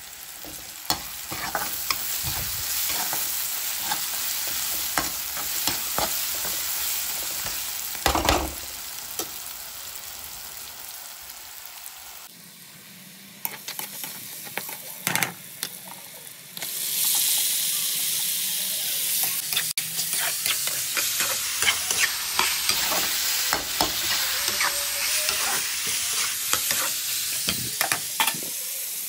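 Chicken gravy masala frying in a pan and being stirred: a steady sizzle with scrapes and knocks of the stirring utensil against the pan. The sizzle falls quieter about halfway through, then comes back louder.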